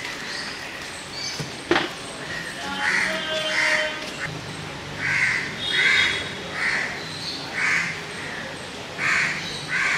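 A bird calling over and over, about eight calls and often in pairs, starting about three seconds in. There is one sharp click just before two seconds.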